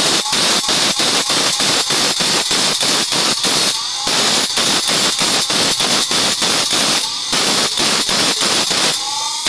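Bench grinder's abrasive wheel grinding a steel blade: a loud, harsh hiss pulsing about four times a second as the blade is worked against the wheel. Three times the blade comes off briefly and the motor's whine is heard.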